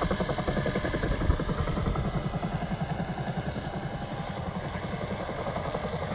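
Scale radio-controlled Huey (UH-1) helicopter, carrying an onboard sound system, flying low with a fast, even rotor beat.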